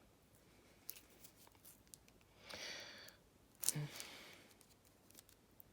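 Faint handling noises of wires and small electrical parts: scattered light clicks, a short rasp about two and a half seconds in, then a sharp click about a second later.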